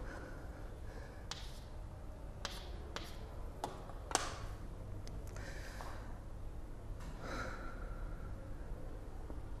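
Quiet room tone with a steady low hum, broken by about six scattered light taps and knocks over the first five seconds, the loudest about four seconds in.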